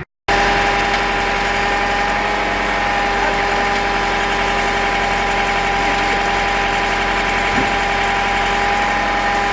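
Engine of a heavy machine running steadily at constant speed, with a steady whine over its hum.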